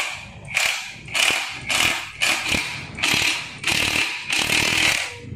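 Hand ratchet wrench worked back and forth, giving a rasping burst of pawl clicks on each stroke, about two strokes a second.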